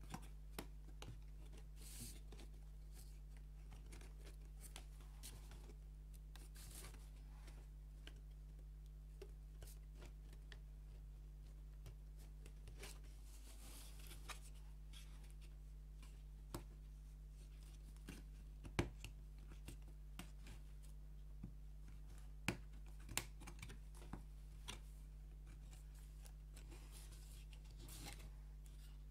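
Thin wooden puzzle pieces being handled and pressed together: scattered light clicks and taps, with a few sharper clicks a little past the middle and some soft scraping between them.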